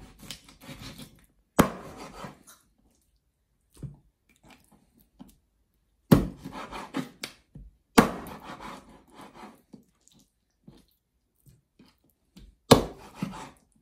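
A large knife chopping raw chicken on a wooden cutting board: four sharp chops a few seconds apart, each followed by lighter knocks and the blade and meat scraping on the board.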